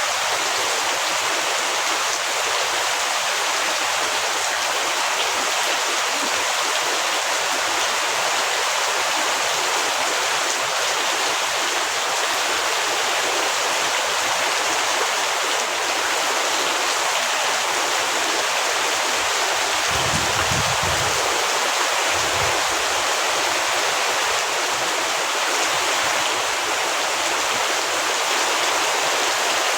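Heavy rain falling in a steady, even hiss. Two short low rumbles come about two-thirds of the way through.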